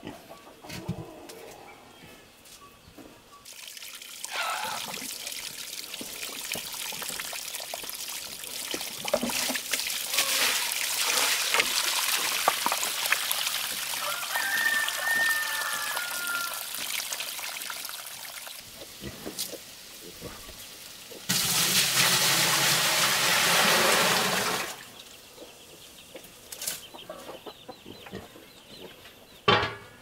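Water pouring and splashing in long stretches, loudest for a few seconds near the end, with chickens clucking now and then.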